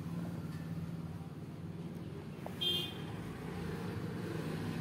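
Steady low background hum, with one brief high-pitched beep a little over halfway through.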